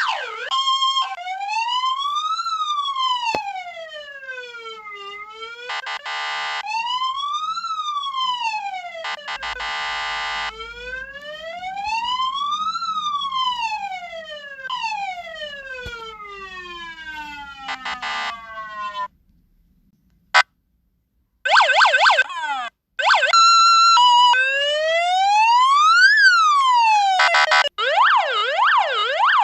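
Electronic emergency-vehicle siren run through its signal tones: a slow wail rising and falling about every five seconds, broken by short steady horn-like blasts, then a brief two-pitch hi-low alternation after a short pause, and near the end a fast warbling yelp.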